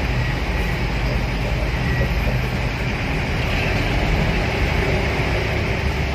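Loud, steady drone of a coach bus's aftermarket exhaust from a few metres behind, mixed with road rumble, heard from inside the following vehicle's cabin.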